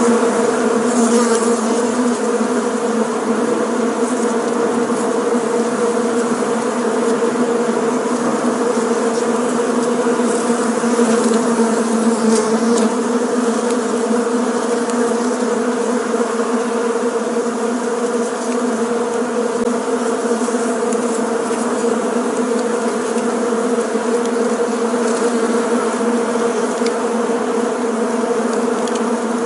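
Many bees buzzing together in a steady, unbroken hum at one low pitch, with overtones above it.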